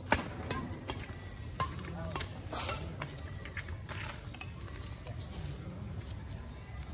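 Badminton racquets striking a shuttlecock during a fast doubles rally: a string of sharp pops roughly a second apart, the loudest just after the start, ending about four seconds in. A steady low background rumble lies underneath.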